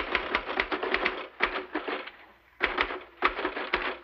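Typewriter being typed on fast: rapid runs of key strikes, a short pause about two seconds in, then another quick run.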